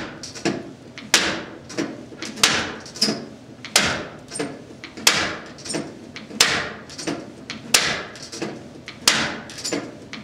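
Punches landing on a makiwara, a padded striking post, in a steady rhythm: a sharp hit about every 1.3 seconds with a weaker knock between each.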